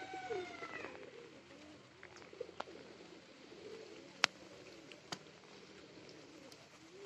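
Pigeons cooing softly off and on, with a few sharp clicks about two and a half, four and five seconds in; the click near four seconds is the loudest sound.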